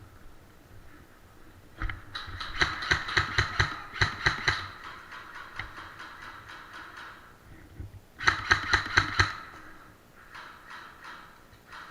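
Airsoft guns firing in rapid strings of shots, about five a second: one string of about two and a half seconds starting about two seconds in, and a shorter one of about a second around eight seconds in.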